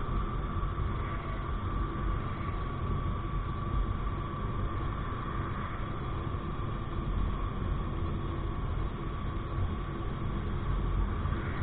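Motorcycle cruising at a steady speed: a constant drone of engine, tyre and wind noise, heaviest in the low end, with a thin steady whine above it.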